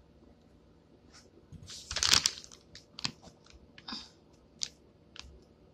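Plastic food packaging crinkling and crackling as it is handled, in a few short bursts, the loudest about two seconds in.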